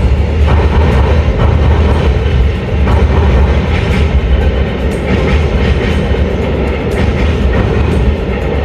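Train passing close by: a loud, steady low rumble with irregular clicks of wheels over rail joints.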